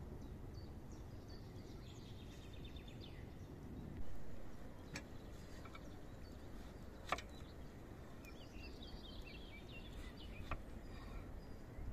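A knife knocks a few times on a wooden cutting board while cutting, over a steady low rumble. Small birds chirp twice in the background.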